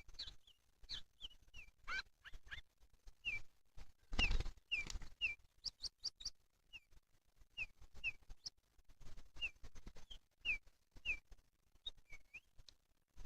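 Pied bushchat (decu) calling: short, sharp down-slurred chirps repeated every half second to a second, mixed with faint clicks, and a brief louder burst of noise about four seconds in.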